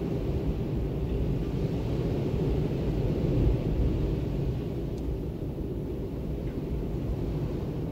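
Strong storm winds gusting: a deep, rushing noise that builds to a stronger gust about halfway through, then eases.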